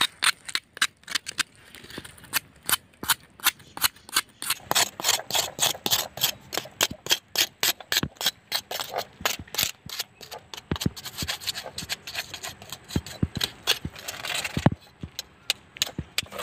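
Knife blade scraping the charred skin of a fire-singed goat head in quick, repeated strokes, about three a second, to clean off the burnt hair and skin; the scraping stops near the end.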